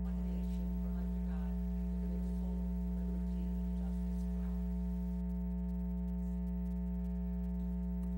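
Steady electrical mains hum with a buzz of even overtones from the chamber's audio system. Faint voices in the room can be heard under it for the first four seconds or so.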